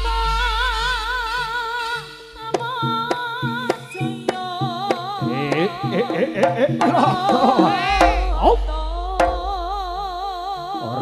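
Live Javanese jaranan accompaniment: drum strikes and deep gong notes under a sustained, wavering melody line.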